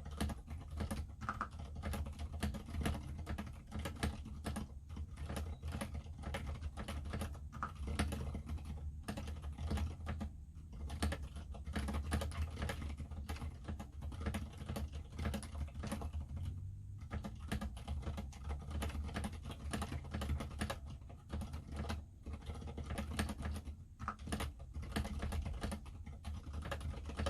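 Continuous typing on a mechanical keyboard with unlubed Zilents v2 67g silent tactile switches, PBT keycaps and an aluminium plate in a plastic Tada68 case. Fast, dense key strokes with a couple of brief pauses, over a low steady hum.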